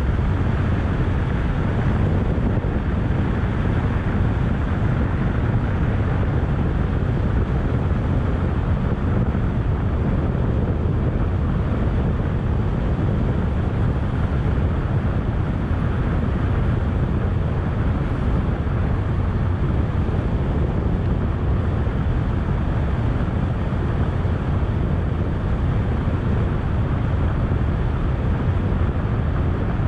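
Steady wind rush on the microphone with engine and road noise from a Kymco scooter riding at a constant speed; the deep rumble stays even throughout.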